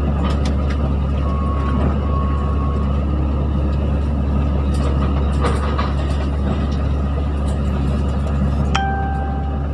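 Hydraulic excavator's diesel engine running steadily, with scattered sharp cracks and knocks. A brief steady high tone comes in near the end.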